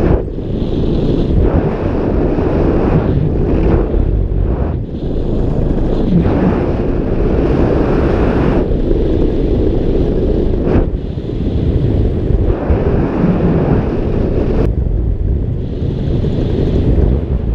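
Wind buffeting the microphone during powered paraglider flight, over the steady running of the paramotor's engine; the rush swells and fades every second or two.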